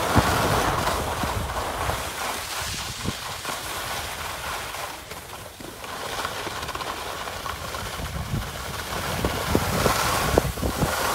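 Skis sliding and scraping over groomed snow during a run downhill, a steady hiss with some wind rumble on the microphone. A few light knocks come near the end.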